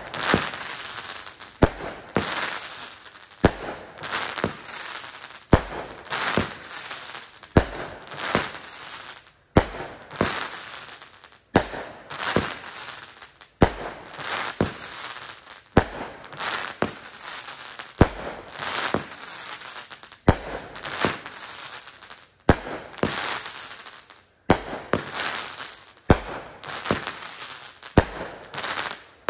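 Brothers Fireworks Gunslinger 500 gram cake firing shot after shot, about one every two seconds. Each shot gives a pair of sharp reports, launch and break, with a hissing haze of sound between them.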